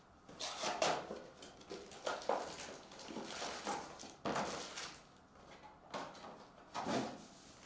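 Foil-wrapped Panini Mosaic soccer card packs crinkling and rustling as they are tipped out of a cardboard hobby box and stacked on a table, in a string of irregular handling noises.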